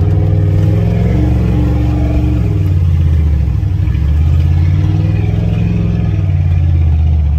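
Pickup truck engine pulling under throttle as the truck speeds up along a wet, muddy dirt track, heard from inside the cab. The engine note rises and eases off more than once.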